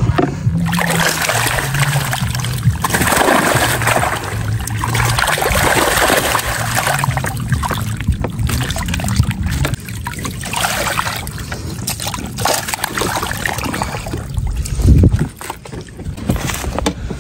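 Water splashing and sloshing as a keep net crowded with live carp is lifted and worked at the surface, the fish thrashing and water streaming through the mesh. A heavy thump near the end.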